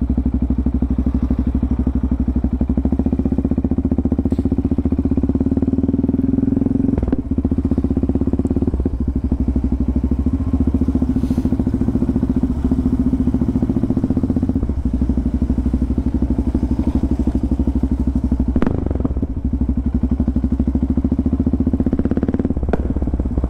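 Yamaha MT-03 660's single-cylinder engine idling steadily, with a few brief knocks.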